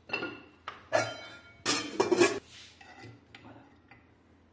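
Kitchenware clattering: a metal spoon and dishes knocking against a large pan and plates, a few sharp knocks, then a longer burst of clinking and scraping about two seconds in.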